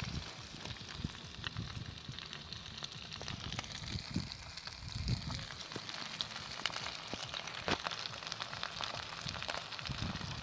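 Fish frying in oil in a pan, a steady sizzle with many small crackles and pops.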